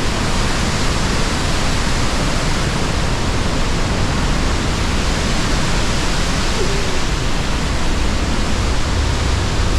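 Loud, steady roar of falling water from the Pailón del Diablo waterfall on the Río Verde, heard at close range.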